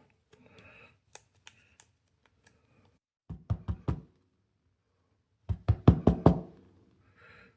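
Two quick runs of sharp knocks on a hard surface, about four strokes a little over three seconds in and about six more near the middle, with faint clicks and rustling between them.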